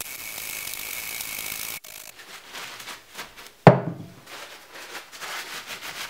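Wire brush scrubbing a chainsaw chain for about two seconds, a steady scratchy rasp. About halfway through comes one loud knock, then softer rubbing and small clicks as the chain is wiped down with a rag.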